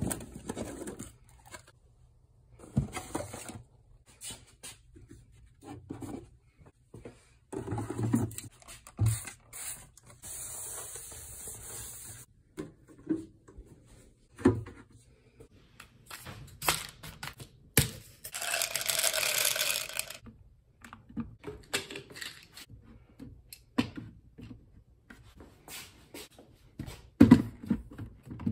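Plastic medicine bottles and packaging being handled and set down on cabinet shelves: a string of short clicks and knocks. Packaging crinkles in two longer stretches, one about ten seconds in and another just past the halfway point.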